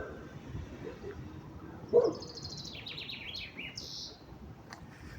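A songbird singing a fast run of high notes that steps down in pitch, ending on a short flourish. A brief, louder low sound comes about two seconds in.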